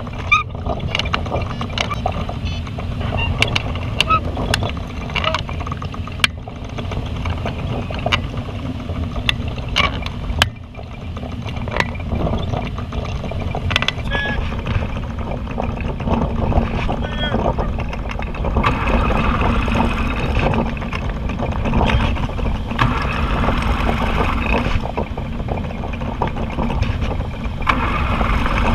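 Wind rushing past the cockpit of a Cumulus motorglider gliding with its engine shut off, with scattered light ticks and rattles. The rush grows louder in the last several seconds.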